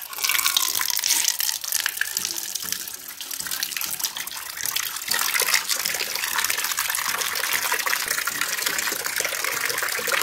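A thin stream of water pouring steadily into a plastic bowl and splashing as it fills.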